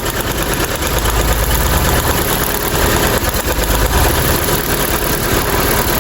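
Mitsubishi Lancer 4G15 four-cylinder engine idling roughly with a steady misfire, running on three cylinders. The number 2 cylinder has lost compression, reading about 25 PSI against 150 on number 1, so pulling its plug wire leaves the idle unchanged. The mechanic suspects leaking valves.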